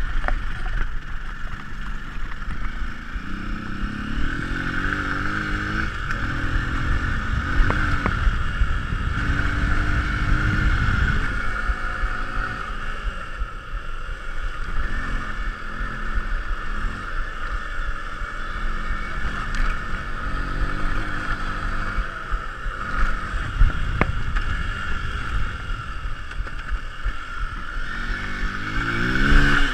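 Single-cylinder motorcycle engine riding on a dirt track, its pitch climbing again and again as it accelerates and falling away between. Steady wind noise on the microphone runs underneath, with an occasional sharp knock from bumps.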